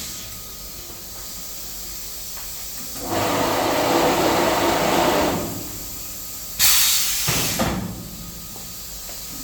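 Zebra-blind fabric cutting machine working: a cutting pass runs for about two and a half seconds from about 3 s in, then a sudden loud hiss starts about 6.5 s in and fades over a second.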